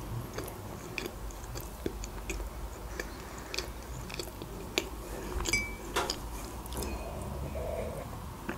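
Quiet mouth sounds of a person chewing a soft chocolate-coated cake: faint, sparse wet clicks and smacks, with a few sharper clicks midway.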